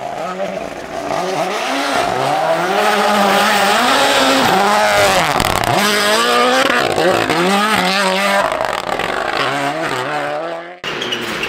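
Rally car engine revving hard and easing off through gear changes as the car passes close by on a snowy stage, the pitch dropping as it goes past about halfway through, with a hiss of tyres and thrown snow. The sound cuts off suddenly near the end.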